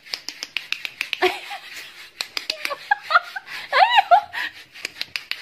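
A person laughing and giggling in short bursts, with a couple of high, arching squeaky calls about three to four seconds in.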